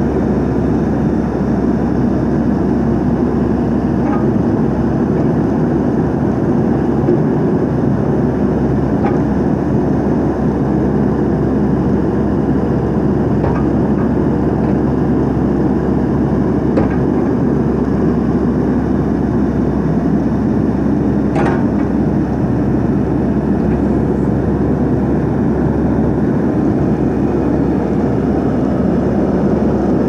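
Komatsu WB146 backhoe's 4.5-litre four-cylinder turbo diesel running steadily while the backhoe boom and bucket are worked. A single sharp knock sounds about two-thirds of the way through.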